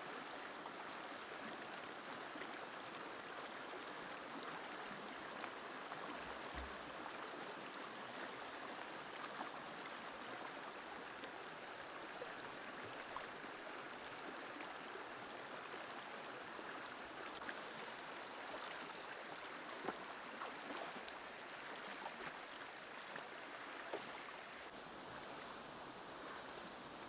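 Steady rushing of a shallow stream flowing over rocks, with a few brief clicks over it.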